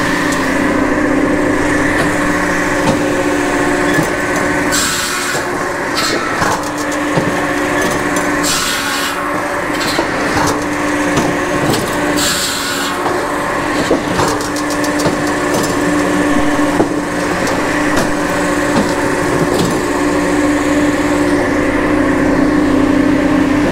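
Japa 700 firewood processor running with a steady hum, its 700 mm circular saw blade cutting through sycamore logs in three hissing cuts about four seconds apart in the first half, with scattered knocks of wood on the machine.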